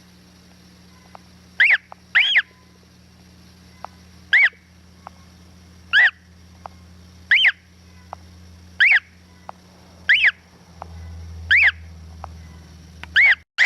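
Gull chick peeping from inside its egg just before hatching: about ten loud, short calls that rise and fall in pitch, one roughly every one and a half seconds, with faint clicks between them over a steady low hum.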